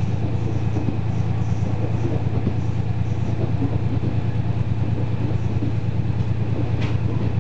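Cabin of a KiHa 40 series diesel railcar running along: the underfloor diesel engine drones steadily over the rumble of wheels on rail, with a brief sharp sound near the end.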